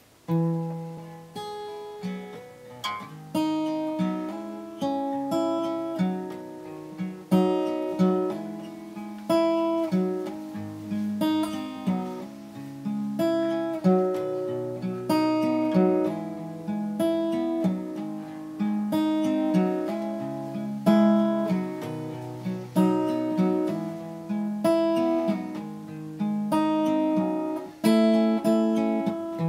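Acoustic guitar with a capo played solo: a steady pattern of individually plucked, ringing notes over lower bass notes. It starts sharply just after the beginning, out of near silence.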